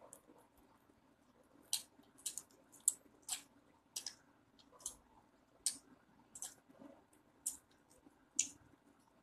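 Kitten chewing and gnawing at a piece of food held in a person's fingers: a string of irregular, crisp, wet clicks and smacks, roughly one or two a second.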